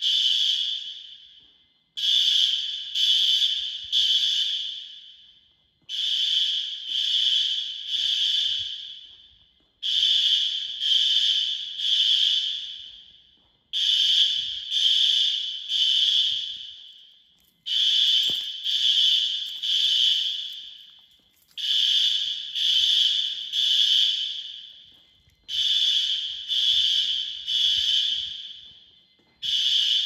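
System Sensor SpectrAlert Advance fire alarm horns sounding the temporal-3 evacuation signal: three loud, shrill honks, then a pause, the pattern repeating about every four seconds. Each group fades off after the third honk.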